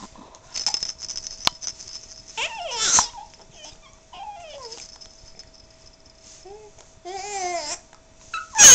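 A four-month-old baby cooing and babbling in short separate sounds that glide up and down in pitch, with a much louder vocal burst at the very end.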